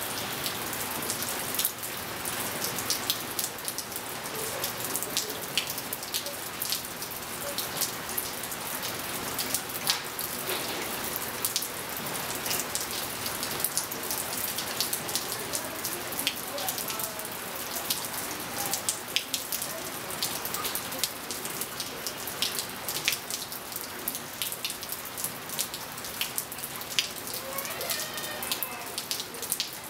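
Steady rain falling on a pool and a wet tiled patio, with many sharp close ticks of drops through the steady hiss.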